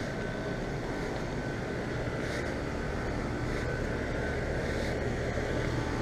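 Comfortmaker central air conditioner condensing units running: a steady mechanical hum of the scroll compressors and condenser fans, with a low drone that grows a little stronger about two seconds in.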